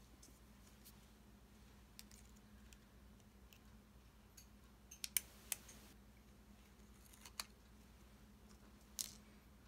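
Metal surgical hemostats and a suture packet being handled on a cloth towel: a few sharp clicks with a brief rustle about halfway through, another click later and a last click near the end, over a faint steady hum.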